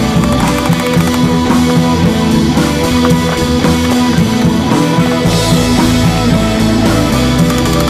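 Rock music with drums and electric guitar, loud and steady.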